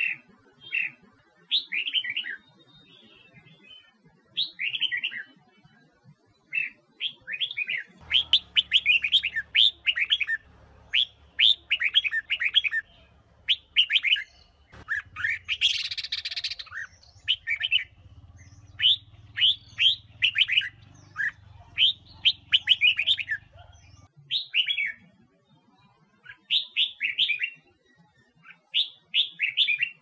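Red-whiskered bulbul singing: short, rapid whistled phrases repeated with brief gaps, coming thickest through the middle. A low hum runs under the middle stretch, and about halfway there is a brief harsh rasp.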